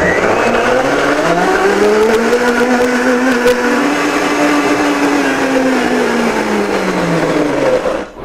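High-powered countertop blender running for about eight seconds, blending a thick chocolate ganache of melted coconut oil, cacao and agave. The motor pitch climbs over the first few seconds, holds, then winds down before it stops near the end.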